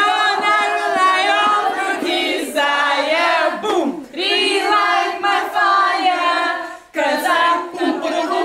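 A group of women's voices singing together without accompaniment, in long held, sliding phrases with short breaks between them.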